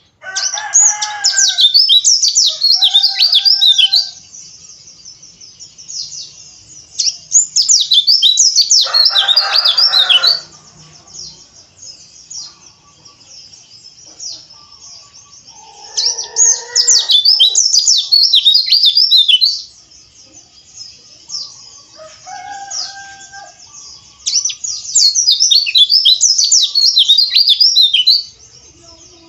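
White-eyes (pleci) singing a rapid, rough, high twittering song in four loud bursts of about three to four seconds each, with quieter twittering in between. Lower-pitched bird calls sound with some of the bursts.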